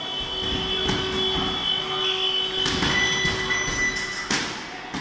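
Gloved punches knocking on pads in a training hall, a few strikes about a second apart, over a steady electronic tone made of several held pitches that starts suddenly and stops about four seconds in.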